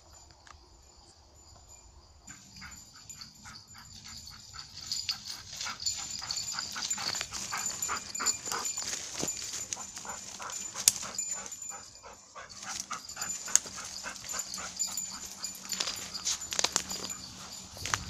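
Airedale terrier barking over and over in a steady series, a search-and-rescue dog's bark alert.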